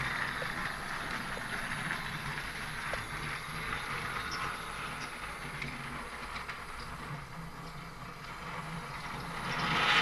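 A battery-powered Plarail toy train, Duck, runs along plastic track with a steady whirring hum, pushing a string of wooden toy engines, with faint ticks from the wheels. The sound grows louder near the end.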